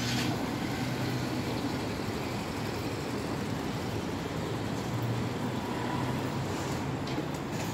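Steady low rumble of city traffic, swelling and fading slightly.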